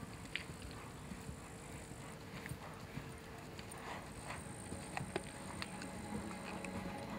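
A dressage horse's hoofbeats on the arena footing, faint, irregular clicks of hooves.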